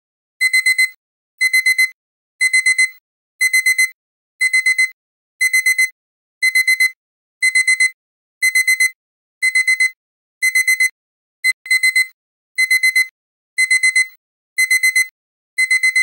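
Digital alarm-clock beeping: bursts of four quick high beeps repeating about once a second, starting about half a second in. It signals that the countdown timer has run out.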